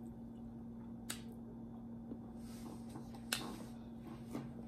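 Close-up eating sounds: a few sharp, wet mouth clicks and lip smacks as stewed turkey neck meat is sucked off the bone and the fingers. A steady low hum runs underneath.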